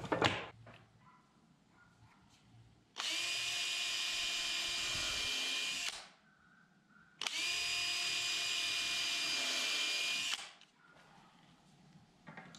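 DeWalt cordless drill boring pilot holes into a pine board: two steady runs of about three seconds each, about a second apart, with a constant motor whine.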